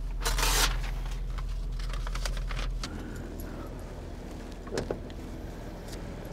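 Police patrol SUV idling with a steady low hum, with a brief rustle about half a second in. About three seconds in the hum drops and changes as the driver's door is open, and a single sharp door knock comes near five seconds.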